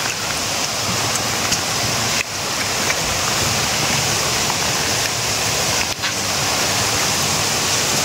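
Steady rushing of water, an even unbroken noise that dips briefly twice.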